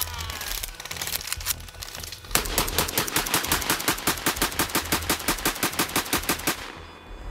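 An automatic gun firing: a few scattered shots, then one long burst of several shots a second from about two seconds in, stopping near the end.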